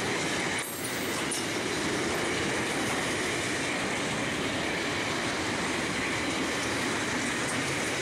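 SCT freight train's box and refrigerated wagons rolling past close by: a steady noise of steel wheels running on the rails, with a brief dip just under a second in.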